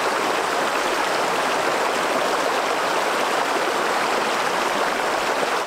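Shallow, rocky mountain creek flowing: a steady rush of running water that cuts off abruptly at the very end.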